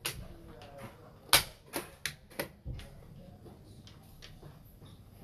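Plastic xiangqi pieces clacking down on a wooden board and the chess clock's buttons being pressed: a quick series of sharp clicks, the loudest about a second and a half in, then fainter ones.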